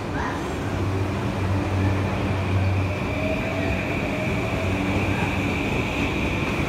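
JR East E235 series Yamanote Line electric train pulling away and accelerating past the platform: a steady rumble of wheels and running gear with a low hum, a steady high whine, and a fainter motor tone that rises in pitch about three seconds in as the train gathers speed.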